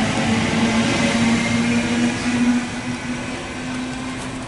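Series 1 Waratah electric double-deck passenger train departing: a steady electric hum over rumbling wheel and rail noise, growing fainter about three seconds in as the train draws away.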